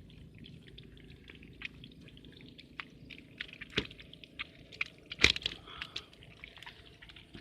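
Small splashes and drips of water with scattered clicks and knocks; the loudest splash comes a little past five seconds in.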